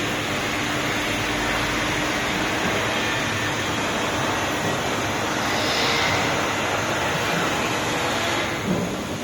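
Steady industrial machine noise from a running Mazak laser cutting system: a continuous even hiss and hum, with a short knock near the end.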